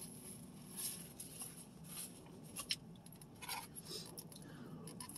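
Faint eating sounds close to the microphone: a few soft, irregular clicks and light mouth or food noises while someone chews.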